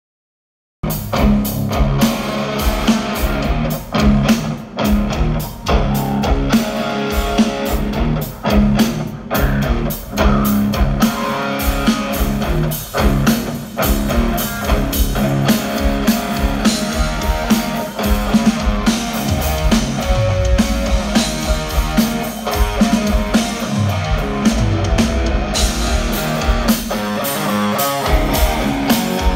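Rock band playing a song at sound check: a drum kit with cymbals, electric guitar and bass, starting abruptly about a second in and running on at full volume.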